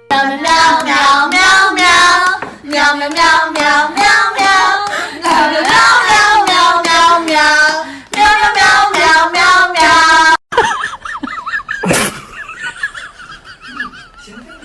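A high voice singing in phrases over regular clapping for about ten seconds. It cuts off abruptly and is followed by a single sharp knock and faint warbling calls.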